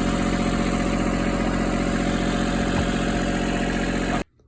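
John Deere 4100 compact tractor's three-cylinder diesel engine running steadily, with its new hydraulic suction hose fitted. It cuts off abruptly near the end.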